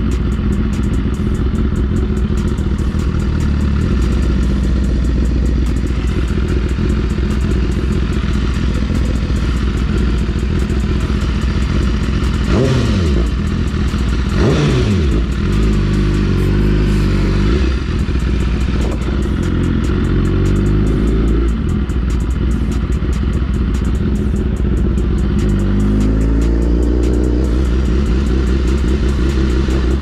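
BMW sportbike's inline-four engine through an Akrapovič exhaust, running under way. About halfway through it revs sharply up and down twice, the pitch then moves in steps, and it climbs again a few seconds before the end.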